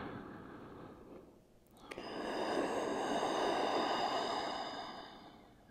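A woman's deep cleansing breath: an inhale tailing off in the first second, then about two seconds in a long, audible exhale, a breathy sigh lasting about three seconds before fading out.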